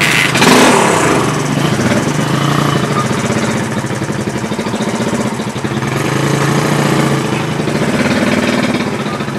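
Motorcycle engine catching with a quick rev about half a second in, then idling with a steady, rapid firing pulse that swells slightly near the end.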